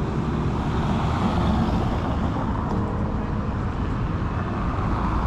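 Steady road traffic noise from city streets, with cars running by.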